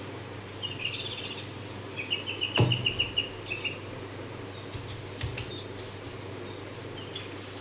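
Birds chirping in short repeated calls over a faint steady low hum, with one sharp click about two and a half seconds in.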